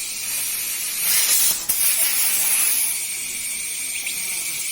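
Compressed air hissing steadily from an air line as a new tubeless scooter tyre is being inflated, louder for a moment about a second in. The new tyre is slow to take air.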